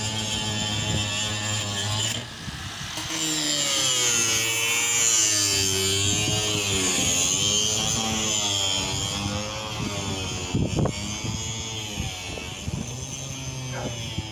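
A motor running with a steady low hum. After about two seconds its pitch wavers up and down as if under changing load, with a hiss above it and a few sharp knocks near the end.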